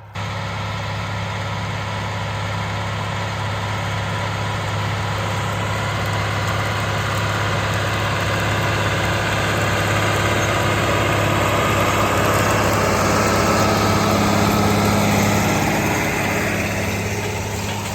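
Diesel engine of large farm machinery running steadily under load, slowly growing louder and then easing off again near the end.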